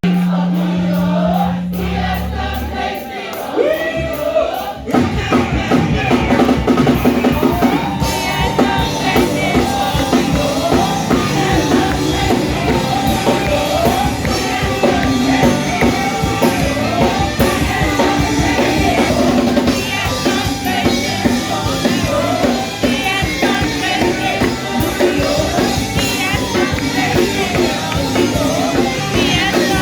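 Live worship music from a church band: a low note held for the first few seconds, then the drum kit and full band come in about five seconds in, with voices singing over a steady beat.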